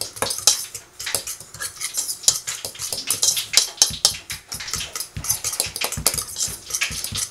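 A metal utensil whipping a dry breading mix of breadcrumbs and cornmeal in a stainless steel bowl: rapid, irregular clicking and scraping of metal on metal, several strokes a second.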